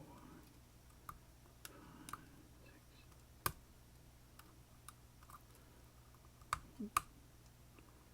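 Lock pick working the pins of an Assa Twin Combi high-security lock cylinder, giving small scattered metallic clicks. Two of the clicks are sharper, about halfway and again near the end: pins setting.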